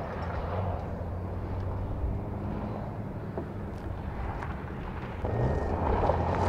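2024 Toyota Tacoma TRD Pro's i-FORCE MAX 2.4-litre turbo four-cylinder hybrid powertrain running as the truck drives on dirt, a steady low engine hum. About five seconds in, the engine note rises and grows louder as it accelerates, with more rushing noise.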